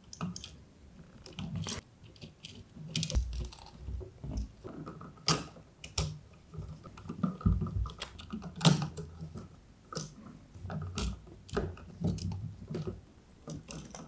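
Hands handling a GFCI outlet and its wiring at the wall box: irregular small clicks, taps and scrapes, with a screwdriver turning the outlet's screws and a few dull knocks.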